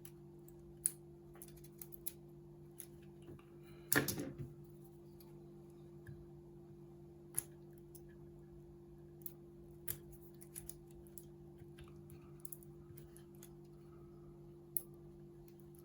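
Sparse small clicks and taps from hands handling the plastic parts and ribbon cable of an Amazon Echo speaker during reassembly, the loudest a short clatter about four seconds in, over a faint steady hum.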